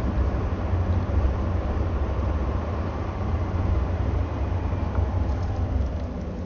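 Steady low rumble with an even noisy hiss over it, like a vehicle in motion.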